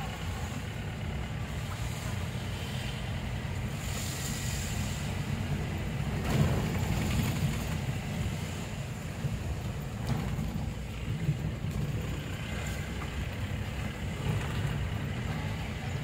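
A car driving along a road: steady engine and tyre rumble, with a brief louder swell about six seconds in.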